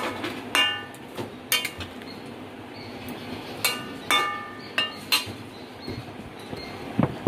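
A metal spatula stirs a curry in a metal kadai, knocking and scraping against the pan. About six sharp clinks ring briefly, spread unevenly through the stirring.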